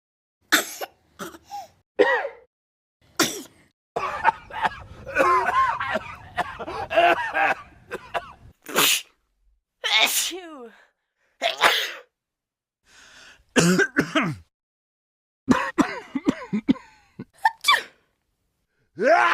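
People sneezing and coughing, one short sharp burst after another, with a denser run of overlapping sounds about four to eight seconds in.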